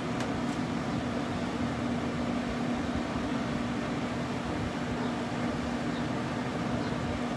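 Pit Boss Whiskey Still pellet smoker running, its fan giving a steady hum: one constant low tone over an even rushing noise.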